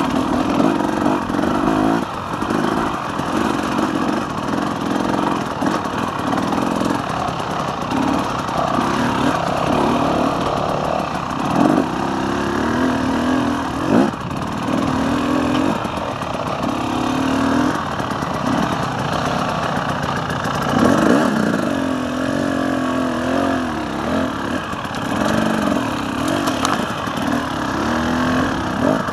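KTM 300 EXC two-stroke enduro motorcycle engine running while being ridden, its revs rising and falling over and over with the throttle. A few sharp knocks stand out along the way.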